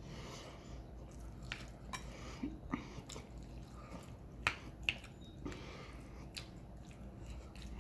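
Close-miked chewing and wet mouth sounds of someone eating tender pepper steak and rice, with scattered small sharp clicks. The two sharpest clicks come about halfway through.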